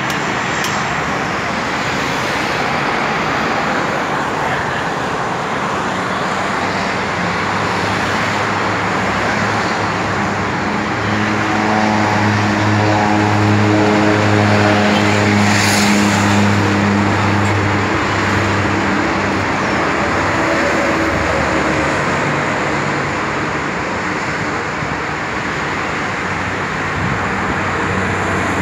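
Light propeller airplane taking off at full power: a steady engine-and-propeller drone that grows loudest about halfway through, then eases as the plane climbs away. A constant rushing noise lies underneath.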